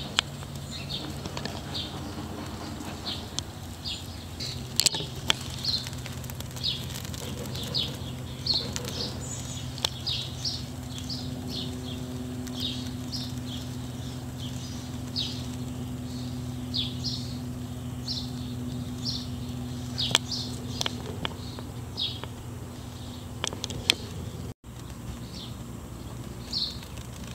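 A bird chirping again and again in short high notes, about once or twice a second, over a steady low hum, with a few light knocks.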